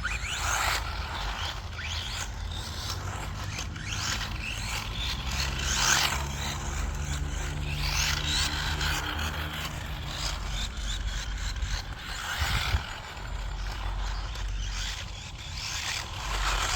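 Hospeed HS16-81 Tornado 1/16 RC short course truck being driven on 3S: its 2430 3800kv brushless motor running with the tyres scrabbling over the ground, in several rasping surges.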